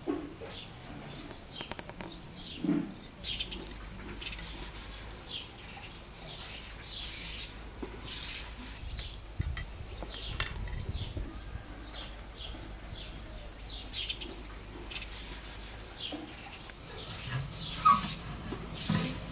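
Small birds chirping: many short, falling chirps repeated throughout, over a steady high-pitched tone. A few soft knocks are heard, and a sharper knock near the end is the loudest sound.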